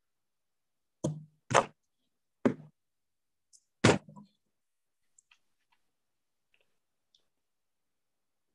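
Four sharp knocks or thumps over about three seconds, the last coming about four seconds in. A few faint clicks follow.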